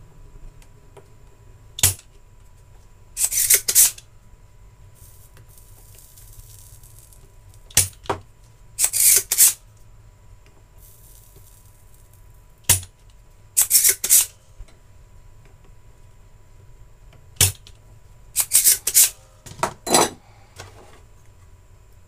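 Spring-loaded desoldering pump (solder sucker) being fired and re-cocked while desoldering a line filter from an SMPS power board. About four times, a single sharp snap is followed about a second later by a short rattling run of clicks.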